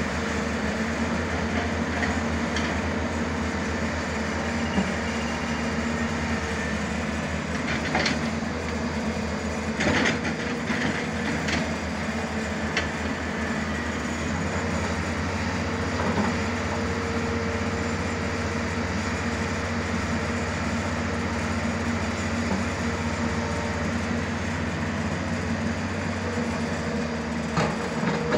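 Hyundai 215L Smart Plus crawler excavator working: its diesel engine runs steadily under hydraulic load with a low rumble and a steady hum, while occasional sharp metallic clanks come from the bucket and boom as it digs and loads a dump truck.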